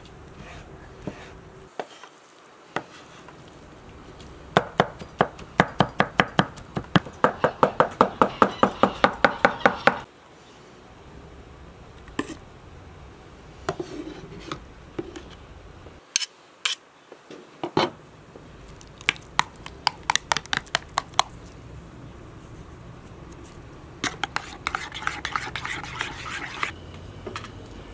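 Kitchen knife chopping garlic on a wooden cutting board, a fast even run of about five strokes a second for several seconds. Scattered taps of the knife and a metal spoon against a clay pot follow, ending in a short burst of spoon stirring.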